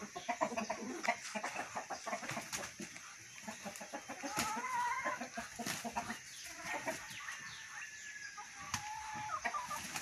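Chickens clucking and calling, with a longer rising call about four and a half seconds in and another near the end. Many sharp scuffs and wing flaps run through it as two roosters spar.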